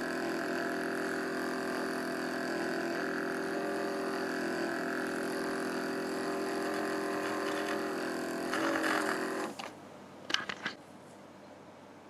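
Ninja DualBrew Pro's fold-away milk frother whisking milk in a glass mug: a steady small-motor whine. Near the end it turns rougher, then cuts off suddenly, followed by a few light clicks.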